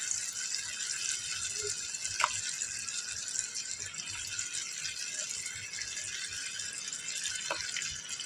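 Masala sizzling steadily in a frying pan as raw goat offal pieces are dropped into it, with a couple of faint knocks.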